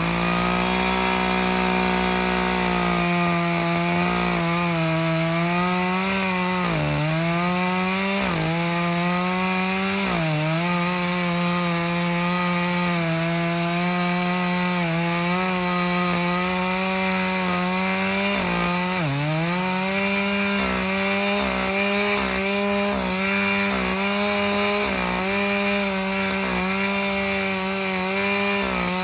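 Chainsaw revving up to full throttle and running steadily while cutting into a tree. Its pitch sags briefly several times as the chain bites into the wood under load, then recovers.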